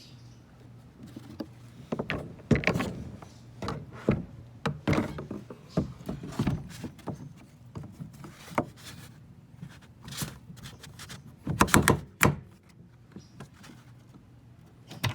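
Irregular hollow thunks and knocks from gear being handled on a plastic kayak, a cluster of louder knocks about twelve seconds in, over a faint steady low hum.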